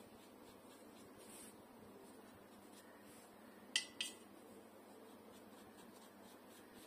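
Paintbrush knocked twice against a hard paint or water pot while being reloaded: two light clinks about a quarter second apart, with a short ringing, against near silence.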